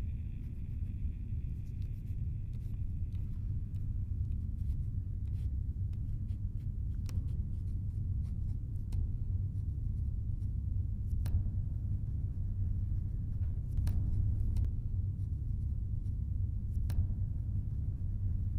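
A steady low rumble with faint, sharp clicks at uneven times, and a faint higher hiss that fades out in the first few seconds.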